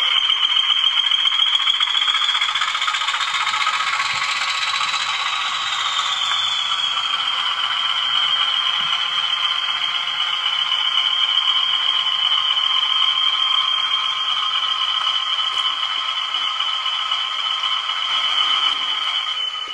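Class 20 diesel engine sound from a model locomotive's DCC sound decoder, played through its small onboard speaker, with a rattly edge. A high turbo-like whine rises in pitch a few seconds in and then settles back to a steady note as the locomotive runs along.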